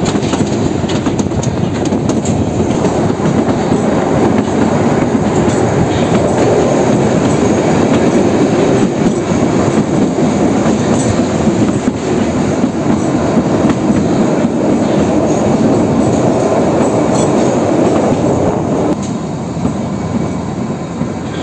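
Kalka–Shimla narrow-gauge toy train running along the track, heard from an open carriage window: a steady rumble of wheels on rails with clickety-clack. It gets somewhat quieter about nineteen seconds in.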